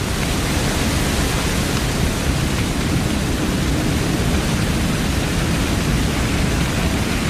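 Airport crash fire truck's turret water cannon spraying: a loud, steady rushing hiss of water.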